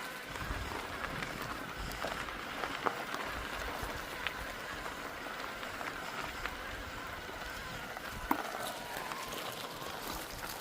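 Mountain bike riding over a trail: steady rolling noise with scattered clicks and rattles from the bike, and wind gusting on the microphone.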